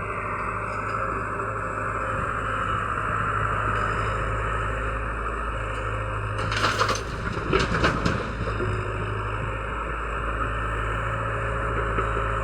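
Excavator engine running steadily. About six to eight seconds in there is a short cluster of loud knocks and scraping.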